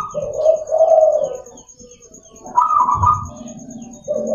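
Zebra dove (perkutut) cooing in repeated phrases, each starting on a higher note and dropping to a lower rolling coo, with a short pause about two seconds in. Faint small-bird chirps sound behind it.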